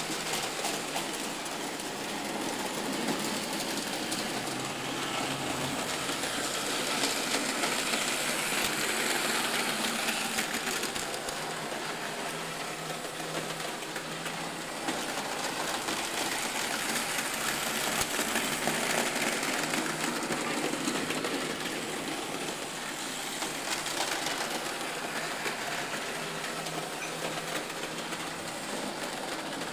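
Märklin model trains running on the layout: a steady whir of small electric motors with the rattle of wheels over the track, swelling louder and fading a few times.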